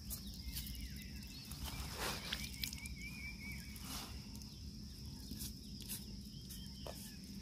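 Outdoor ambience: a steady high insect drone, with a short run of twittering bird chirps about two to three seconds in, over a low rumble and a few faint clicks.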